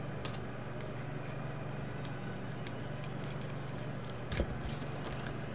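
Trading cards being flipped through by hand: faint ticks and rustles of card stock, with one sharper click about four seconds in, over a steady low hum.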